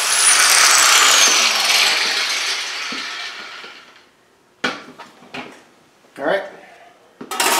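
Electric grinder spinning down after being switched off: a high whine falling steadily in pitch over a rush of noise that fades out over about four seconds. A few light knocks follow.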